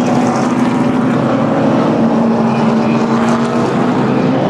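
Field of NASCAR stock cars' V8 engines running together on the track, a loud steady drone whose pitch holds nearly constant and sags slightly near the end.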